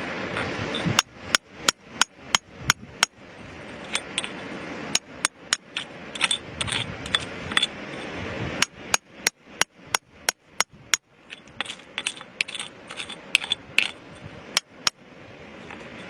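Hammer striking rock in runs of sharp blows, about three a second with short pauses between runs, some blows leaving a brief ring.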